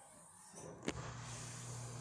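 A sharp click about a second in, then a steady low electric hum starts up and keeps going.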